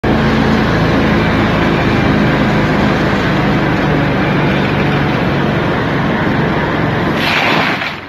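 Petrol engine of tree-work power equipment running steadily at high speed, with a brief louder rush about seven seconds in.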